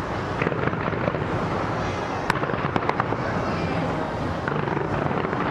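A fireworks display going off in a continuous barrage of bangs and crackles, with a few sharper cracks standing out a little after two seconds in.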